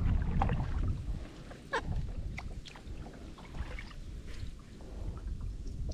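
A kayak being paddled with a broken paddle: water sloshing with scattered short knocks and clicks against the hull. Wind rumbles on the microphone in the first second.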